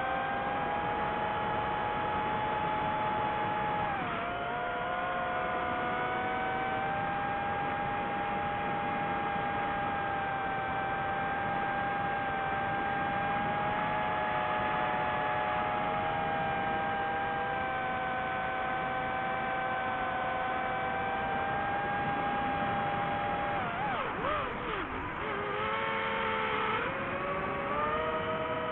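DJI FPV drone's motors and Gemfan Hurricane 5236 propellers whining in flight. The pitch drops briefly about four seconds in, then holds steady, and wavers and dips near the end.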